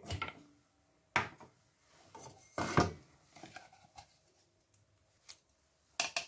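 A few separate knocks and scrapes from handling a small chopper: its plastic blade insert is lifted out and set down, and its plastic bowl is tipped and knocked against a stainless steel bowl to empty the chopped chili paste. The loudest knock comes near the middle, another near the end.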